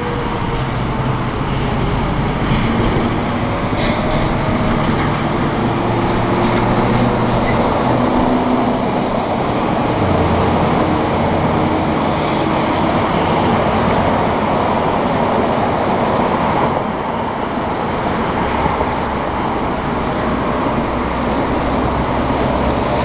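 Steady road traffic noise from passing vehicles. Through it, the last of a Whelen WPS 3016 siren's wail is falling in pitch and fading out during the first few seconds.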